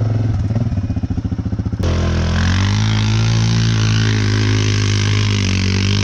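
Quad (ATV) engine running under throttle with a fast pulsing note. About two seconds in, the sound switches abruptly to a smoother, steadier engine note that rises and falls slightly in pitch.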